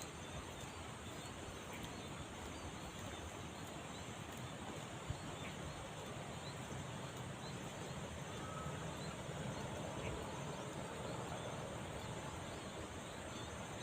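Steady, even outdoor background noise, a soft hiss with no distinct events.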